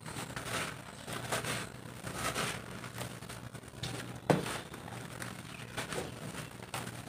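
Handfuls of dry roasted dirt scooped, crumbled and poured back into a pile, a run of soft rustling pours, with one sharp crunch about four seconds in.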